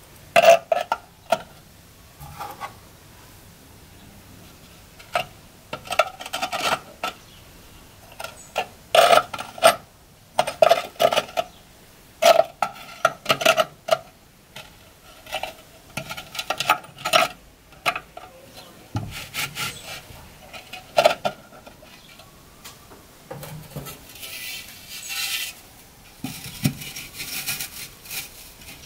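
Small glazed terracotta ornaments clinking and scraping against each other and the floor of a microwave kiln as they are set in place, in irregular clusters of sharp ceramic taps. Near the end, a longer scraping rub as the kiln's lid is fitted on.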